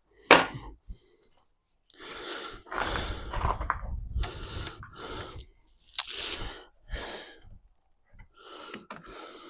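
Rustling and scraping handling noises in irregular bursts, with a sharp click just after the start and another about six seconds in.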